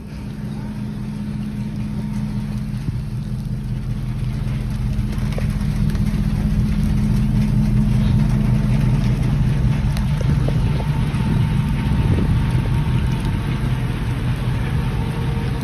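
A pickup truck's engine idling with a steady low hum.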